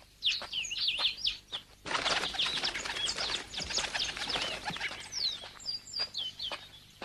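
Small birds chirping in quick runs of short falling chirps, with a burst of flapping wings from about two seconds in that lasts about three seconds.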